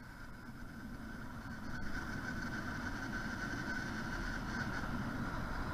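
YD100 two-stroke motorized-bicycle engine running, getting louder over the first two seconds and then holding steady, with a constant high whine over it.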